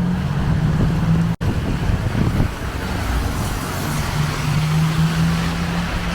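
Street traffic: vehicles passing on the road, with an engine's steady low hum under the noise of the traffic.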